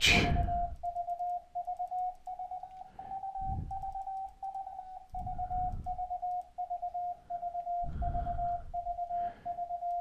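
Morse code sidetone of about 700 Hz from FLdigi's CW mode, keying the letter V over and over as a continuous test transmission. Its pitch is nudged slightly higher for a few seconds, then settles back down.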